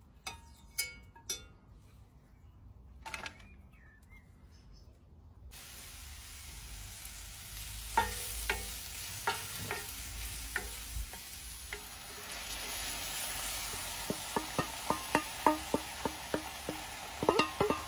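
Sliced mushrooms sizzling in butter in a cast-iron skillet, stirred with a wooden spatula that knocks and scrapes against the pan. It starts with a few light clicks, the sizzle sets in about five seconds in and swells past halfway, and near the end the stirring turns into quick, regular taps.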